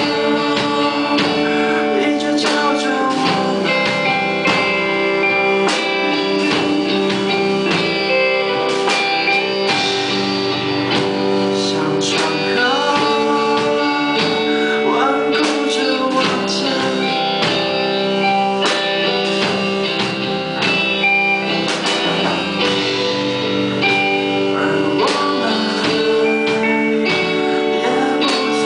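Live rock band playing: electric guitars, bass and a drum kit, with a singer's voice over the band.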